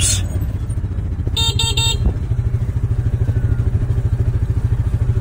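Small engine of a side-by-side utility vehicle idling with a fast, even pulse. Its horn gives three short beeps about a second and a half in.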